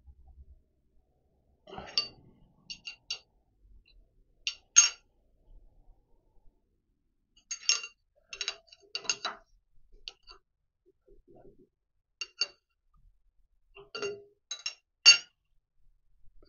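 Metal-on-metal clinks and knocks from a cast overarm support bracket being fitted, swung and settled on the steel overarm bar of a horizontal milling machine: about a dozen sharp ringing clinks in small groups, with quiet between them.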